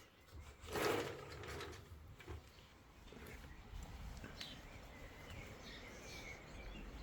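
Faint outdoor ambience with a steady low rumble and a few short bird chirps in the second half, after a brief swish about a second in.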